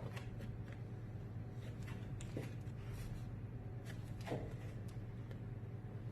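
Quiet room tone: a steady low hum with a few faint clicks and rustles, the clearest about two and four seconds in.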